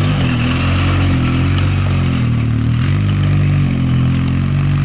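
Engine of a small four-wheel-drive off-road vehicle driving in snow, its revs rising and falling for about three seconds, then holding at a steady pitch.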